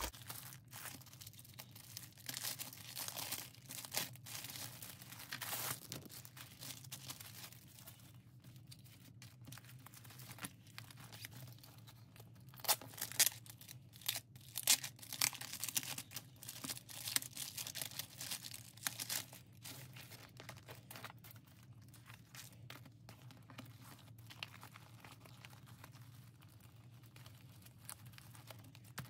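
Crinkling and rustling as a Hobonichi A5 planner cover and its packaging are handled. The sound comes in irregular bursts, loudest about twelve to fifteen seconds in.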